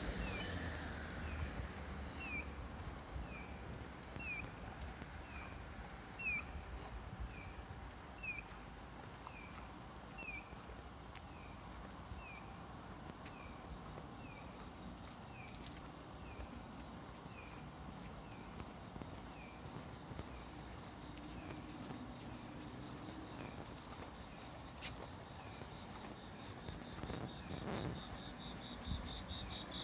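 Insects calling at night. A regular series of short, high, falling chirps comes about twice a second and fades away over the first half. Near the end a cricket starts a fast, high trill.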